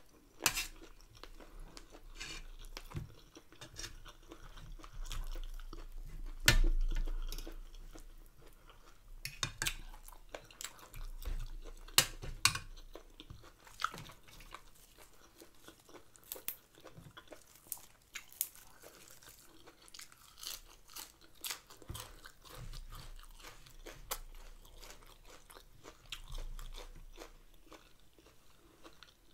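Close-miked chewing of rice and stir-fried chicken gizzards, with irregular crisp crunches and sharp clicks scattered through; the loudest crunch comes about six and a half seconds in.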